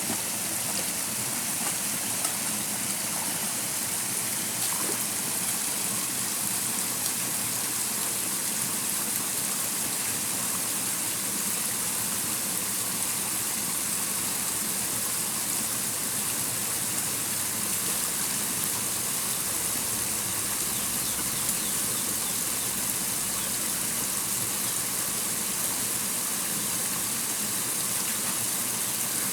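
Stream water running steadily, an even hiss that holds the same level throughout with no breaks.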